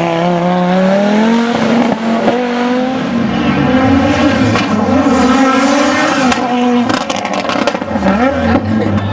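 Audi Sport Quattro S1 E2 rally car's turbocharged five-cylinder engine running hard, revs climbing and then rising and falling through gear changes. A quick run of sharp cracks comes about seven seconds in.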